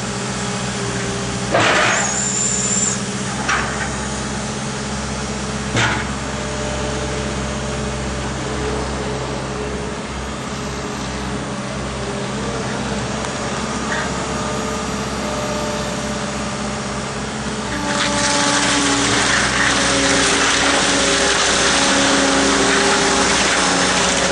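New Holland LS170 skid steer loader's diesel engine running steadily, with a few sharp knocks in the first six seconds. At about eighteen seconds it becomes louder, with a rushing hiss over the engine note.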